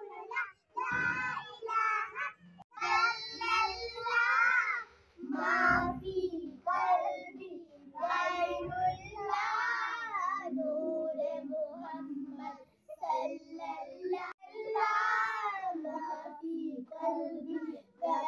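Several young girls singing a devotional song together, unaccompanied, their voices rising and falling in long held lines.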